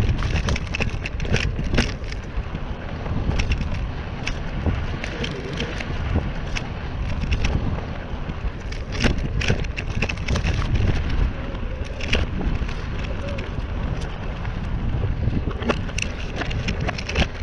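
Mountain bike riding along a trail, with wind buffeting the microphone in a steady low rumble and frequent sharp clicks and rattles from the bike jolting over bumps.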